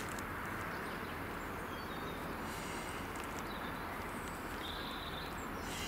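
Steady outdoor background noise, with a few short faint bird chirps in the middle and near the end.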